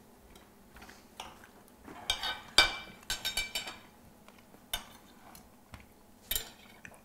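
Cutlery clinking and scraping against plates while eating: a scattered series of light, ringing clinks, the loudest about two and a half seconds in.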